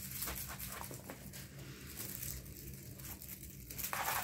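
Kittens at play with a feather wand toy: rustling and scratchy scuffling with a few light clicks as paws and claws scrabble on a laminate floor and the toy is dragged about, growing louder near the end.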